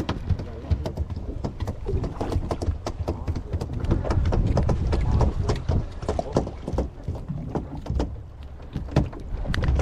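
Dense, irregular clicking and tapping close to the microphone, over a low rumble of wind buffeting the microphone.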